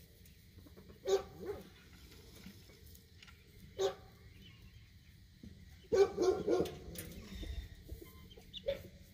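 A dog barking: single barks about a second in and near four seconds, then a quick flurry of barks about six seconds in and one more near the end.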